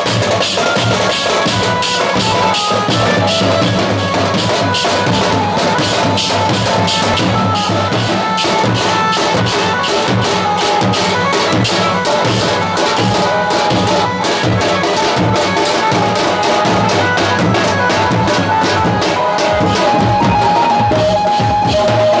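A teenmaar band drumming: large bass drums and side drums beaten with sticks in a fast, dense, driving rhythm, with cymbals clashing. A stepping melody line runs over the drums.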